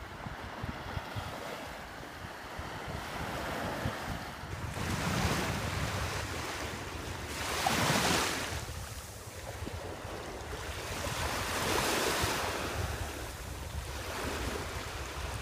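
Small waves washing up on a sandy beach, swelling roughly every three to four seconds, with wind buffeting the microphone.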